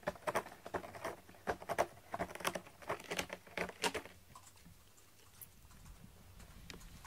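A cat scratching its claws on a corrugated cardboard scratcher: a quick, irregular run of scratching strokes that stops about four seconds in.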